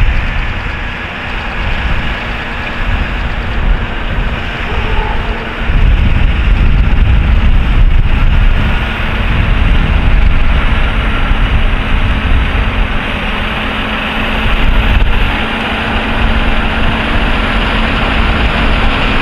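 Lockheed C-130 Hercules' four turboprop engines at takeoff power as the aircraft rolls, lifts off and climbs away: a loud, steady drone with a deep rumble.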